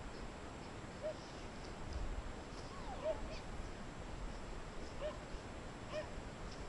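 Four short, high animal calls a second or two apart, one near the middle sliding quickly up and down in pitch, over a faint steady hiss.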